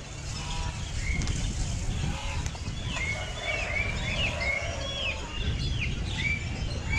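Birds chirping: a string of short, repeated calls, each dropping in pitch and then levelling off, coming thicker from about three seconds in, over steady low background noise.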